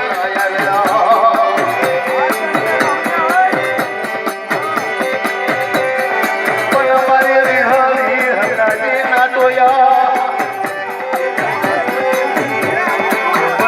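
Gujarati dakla folk music: a drum beats a steady rhythm under held droning notes and a wavering melody line.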